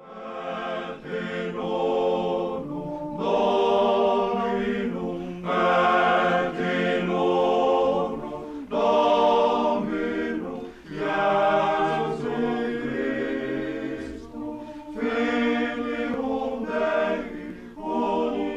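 A choir singing in long held phrases, several voices together, with short breaks between phrases.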